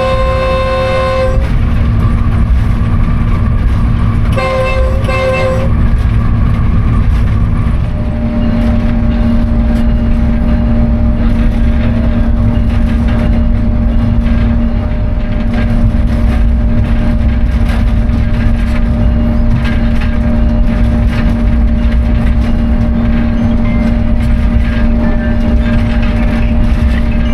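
Pakistan Railways GEU-40 diesel-electric locomotive: its horn is sounding at the start and stops about a second in, then blows again briefly around five seconds in. Under the horn the locomotive runs with a loud rumble of engine and wheels on track, and a steady hum joins about eight seconds in.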